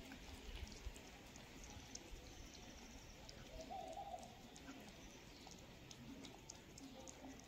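Near silence with faint, scattered clicks of two cats chewing and licking food off a plate, and one short, soft call about four seconds in.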